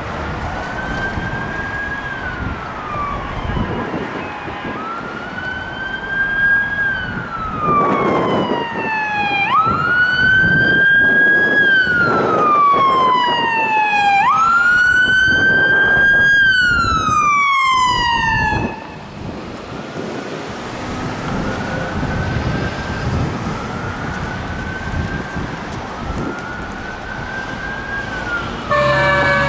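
Electronic siren of a 2011 Chevrolet Tahoe fire chief's car sounding on wail, each cycle rising quickly and falling slowly. It grows louder as the car approaches and passes, drops off sharply about 19 seconds in, and carries on fainter. Near the end a louder sound with several steady tones cuts in from the fire engine following it.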